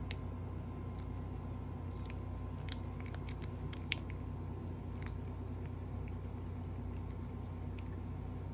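Cat licking a squeeze-tube treat: a scattering of small wet clicks from its tongue and mouth, bunched between about two and five seconds in, with the sharpest near three and four seconds. A steady low hum runs underneath.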